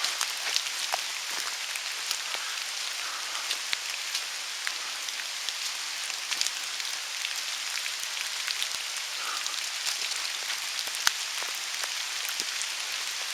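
Steady rain falling, a continuous hiss sprinkled with many sharp ticks of single drops striking close by.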